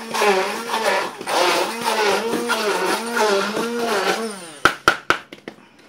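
Handheld stick blender running in a plastic bowl, chopping peppers, onion, celery and garlic. Its motor pitch rises and falls in a regular pulse as the blade bites into the vegetables. It stops about four and a half seconds in, followed by a few sharp knocks.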